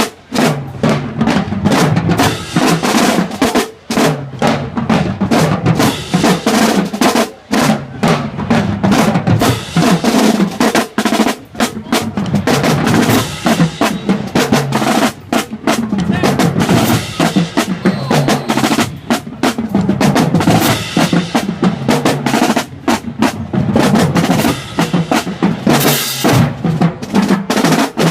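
Marching band drumline playing a fast cadence: snare drum rolls over bass drum beats, without a break.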